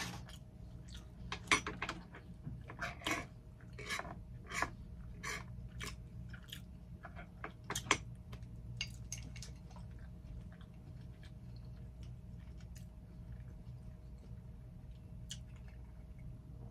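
Close-miked chewing of a mouthful of cheeseburger, with frequent wet mouth clicks and smacks through the first half that thin out to occasional clicks later.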